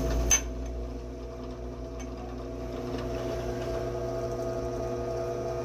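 Bench drill press running steadily, drilling holes in a 2-inch galvanized steel tube, with one sharp metallic click about a third of a second in.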